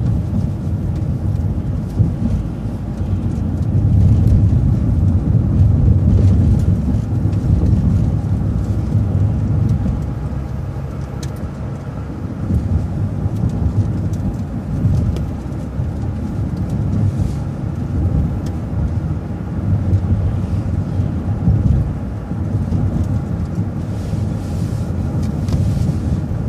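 City transit bus running, heard from inside: a low engine and road rumble that swells and eases as the bus speeds up and slows down.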